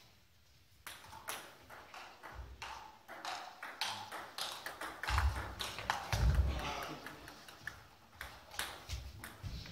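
Table tennis balls clicking off bats and the table in quick irregular runs, with a few dull low thumps around the middle.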